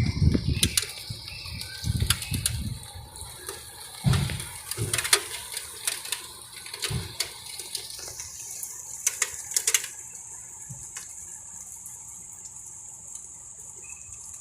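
Strong wind gusting against the microphone in irregular low rumbles, with scattered clicks and knocks, settling after about eight seconds into a steady hiss.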